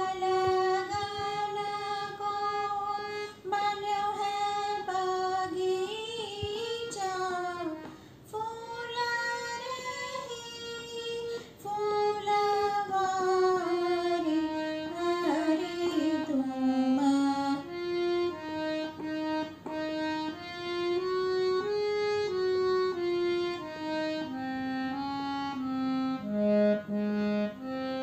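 A woman singing a devotional kirtan in raag Jangla, accompanied by a harmonium. About two-thirds of the way through, the voice stops and the harmonium plays the melody alone in short stepped notes.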